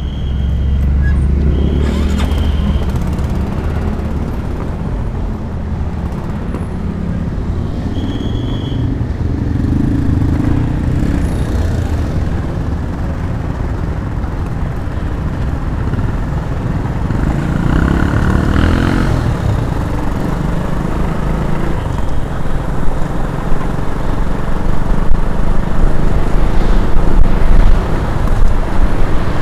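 Motor scooter being ridden through town traffic, heard from the rider's seat: a small engine and road noise with a steady low rumble. A few short high beeps sound in the first several seconds, and the noise grows louder and rougher toward the end as the scooter picks up speed.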